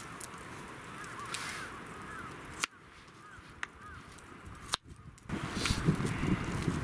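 Knife slicing lotus root on a wooden cutting board, the blade knocking sharply against the board a few times about a second apart. Wind buffets the microphone near the end.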